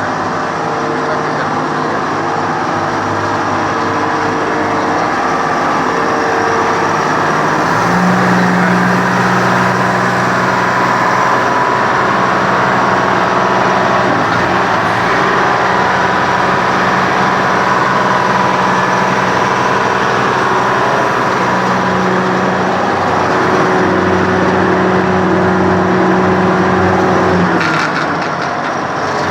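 Texoma 900 drill rig's engine running steadily; about a third of the way in its speed steps up and holds, then drops back near the end.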